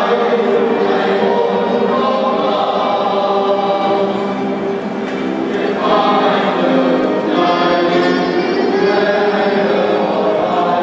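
Large men's choir singing sustained chords in harmony, easing off slightly about halfway through before a new, louder phrase enters.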